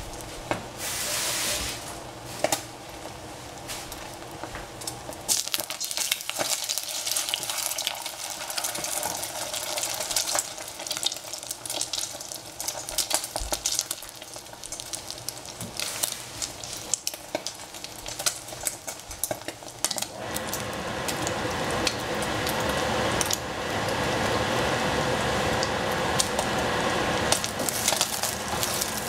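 Eggs frying in oil in a stainless steel saucepan, sizzling and crackling, with a wooden spatula scraping and stirring against the pan. The sizzle grows louder about two-thirds of the way through.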